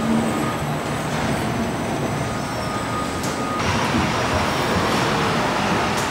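Car assembly plant floor noise: a steady mix of machinery hum and hiss with a faint high whine. About three and a half seconds in, the whine stops and the noise turns brighter and hissier.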